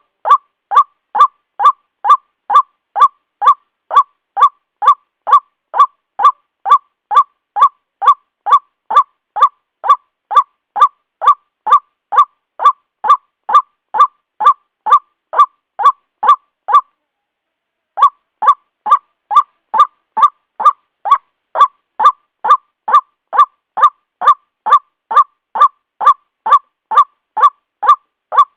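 White-breasted waterhen (ruak-ruak) calling: short, identical notes repeated about twice a second, with a pause of about a second a little past the middle.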